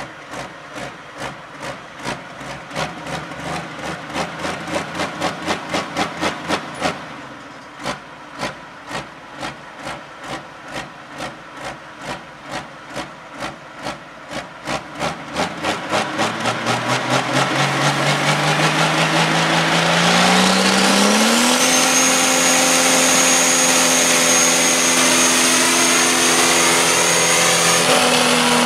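Turbocharged diesel engine of a John Deere 4640 pro stock pulling tractor. It starts as heavy rhythmic chuffing pulses, a few a second and speeding up. From about halfway through it climbs steadily in pitch, then holds at a high, steady wide-open pitch with a high turbo whine. This is a diesel runaway: the injection pump is stuck open and the engine is pouring in all its fuel.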